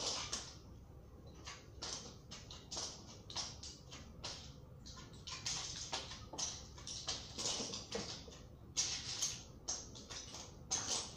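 Small toy building blocks clattering and clicking as hands rummage through them and fit pieces together, in many short, irregular bursts.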